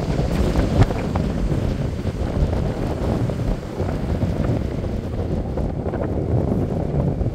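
Wind buffeting the microphone in gusts, over the steady wash of rough surf breaking on a shingle beach.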